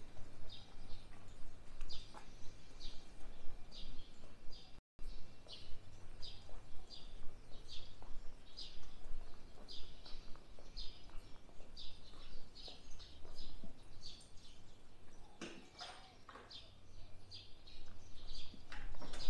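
Birds chirping over and over, about two short chirps a second, over a low steady rumble. The sound drops out completely for an instant about five seconds in, and a few sharp clicks come near the end.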